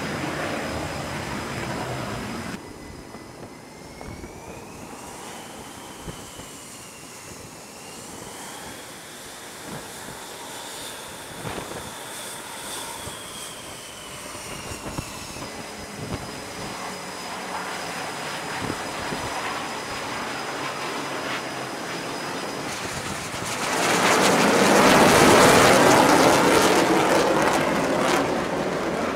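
F/A-18 fighter jet engines passing overhead. A loud pass fades over the first couple of seconds, and a high whine glides up and down in pitch midway. Another jet with its landing gear down swells to a loud pass about 24 seconds in.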